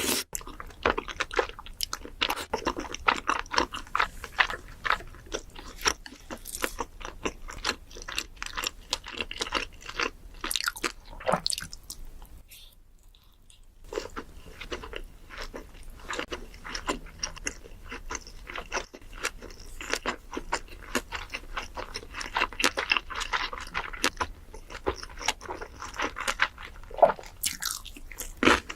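Close-up chewing and crunching of crisp food, a dense run of crackling bites with a pause of about two seconds near the middle.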